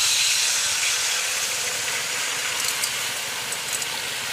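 Liquid poured into a hot wok, sizzling with a steady loud hiss that fades slowly and has a few faint crackles.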